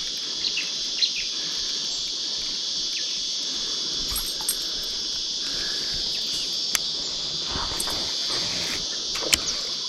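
Steady high-pitched insect chorus with a few short sharp clicks scattered through it.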